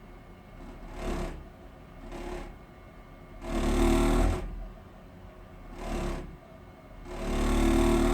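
Gas boiler making an abnormal vibrating noise: a buzzing rattle over a steady low hum that swells and fades in waves about every second or so, strongest around the middle and again near the end.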